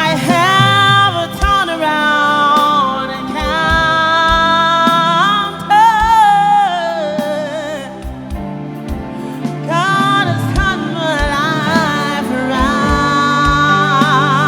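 A woman singing gospel, holding long, wavering notes with vibrato and sliding between pitches, over live band accompaniment with a regular low drum beat.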